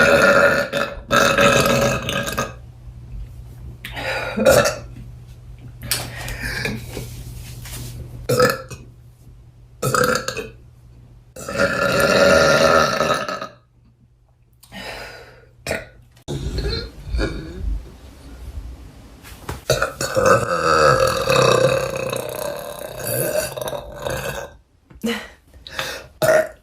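A young woman burping over and over: a string of about a dozen loud burps, some short and some drawn out for a second or two.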